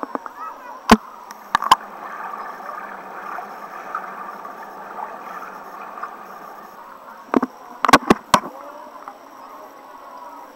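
Muffled water sloshing and swishing against a camera dipping in and out of a swimming pool at the waterline. Sharp knocks come about a second in and again in a quick cluster near the end.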